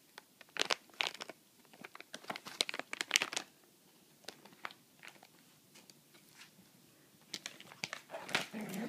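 Plastic wrapper of a dog chew bone crinkling and crackling as a dog paws and mouths at it to get the bone out: a dense run of sharp crackles for the first three and a half seconds, then scattered ones.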